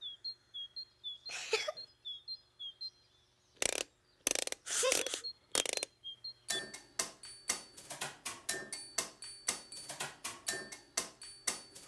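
Sound effects: short high beeps and a few separate knocks, a longer pitched noise, then from about halfway a quick run of clicks and knocks, several a second.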